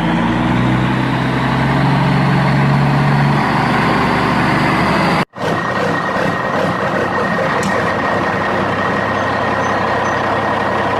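A machine running steadily with dense mechanical noise and a low hum, which breaks off abruptly about five seconds in and resumes with a thin high whine.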